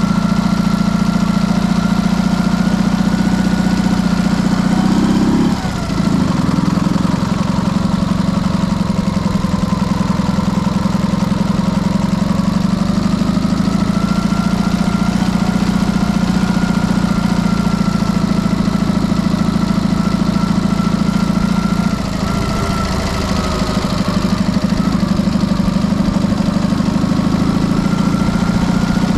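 Dnepr motorcycle's flat-twin four-stroke engine, fitted with PZ30 carburettors, running steadily while riding. The engine note dips briefly about five and a half seconds in, as if the throttle were shut for a gear change, and eases off again for a couple of seconds near the end.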